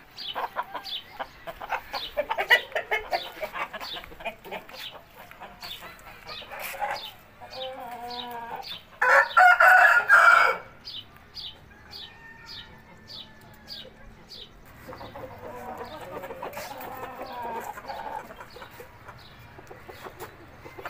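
Gamecocks (fighting roosters) clucking and calling, with one loud crow about nine seconds in.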